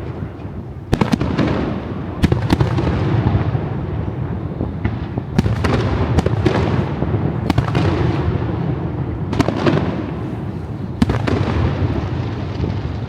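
Aerial fireworks display: shells bursting in about ten sharp bangs, roughly one a second, over a continuous low rumble of booms and their echoes.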